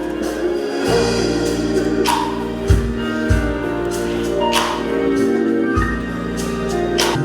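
Gospel music played live on organ: held chords over bass notes, with a crash about every two and a half seconds.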